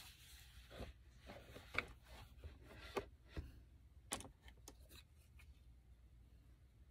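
Very quiet handling sounds: a handful of faint, scattered taps and clicks of a makeup brush being worked against an eyeshadow palette.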